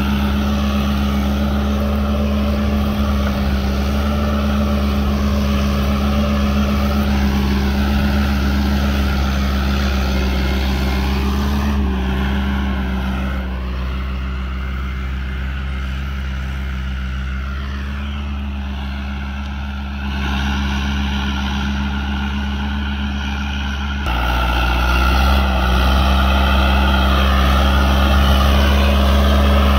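Fiat 640 DT tractor's four-cylinder diesel engine running steadily while pulling a reversible plough. It is fainter through the middle, then abruptly louder and closer a few seconds before the end.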